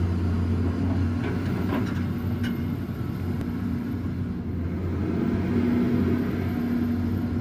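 A large engine running steadily at an even speed, a low drone, with a few faint clicks in the first half.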